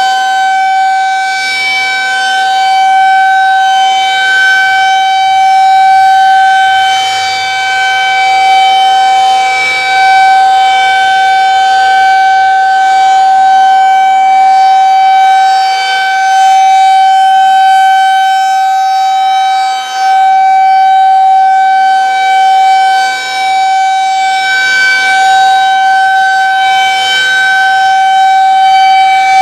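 Federal Signal 2001 SRNB rotating tornado siren sounding a steady, unchanging tone. It is loud, and its loudness swells and fades every few seconds as the siren head turns. This is the monthly test of the outdoor warning siren.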